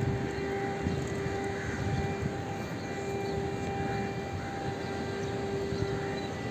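Siren on Vivekananda Rock sounding at sunrise: one steady, unwavering tone over a low rumbling background.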